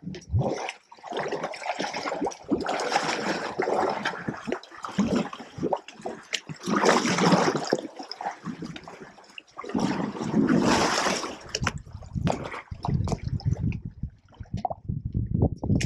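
African elephants drinking close by, their trunks sucking up and splashing water with gurgling and trickling in bursts of a second or two. Near the end the sound drops to low knocks and rubbing as a trunk touches the camera.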